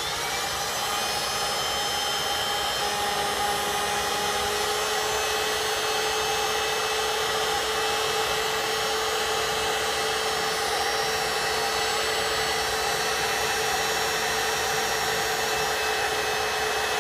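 Handheld heat gun running on its lowest speed setting, blowing hot air onto heat-shrink tubing: a steady rush of air with a steady motor whine. The whine dips slightly in pitch about three seconds in.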